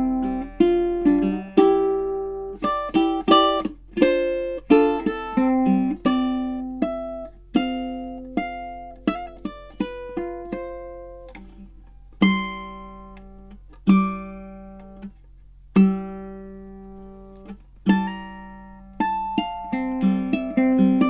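Tenor ukulele with sabicu back and sides and a redwood top, played solo: plucked notes and chords, thinning in the middle to single chords struck about every two seconds and left to ring, then busier picking again near the end.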